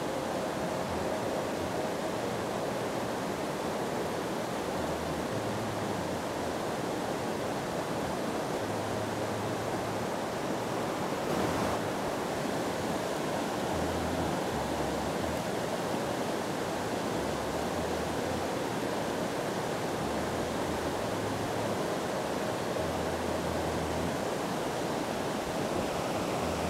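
River water rushing steadily over rocky rapids of white water, a constant even roar of moving water.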